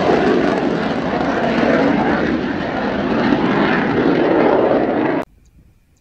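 Mitsubishi F-2 fighter's F110 turbofan in afterburner, a loud steady jet roar as it climbs out after takeoff. The roar cuts off abruptly a little after five seconds in.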